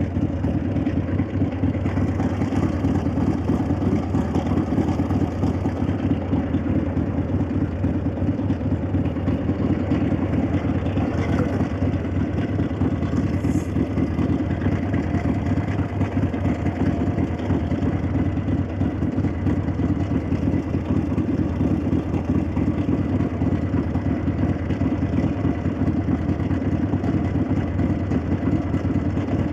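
1965 Harley-Davidson XLCH Sportster's Ironhead V-twin running steadily, its exhaust note mixed with the clack of its valvetrain.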